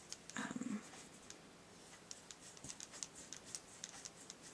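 Faint ticking and scratching of a glitter brush pen's tip dabbed and pressed onto cardstock, with the small taps coming thicker in the second half. A brief low hum from a person about half a second in.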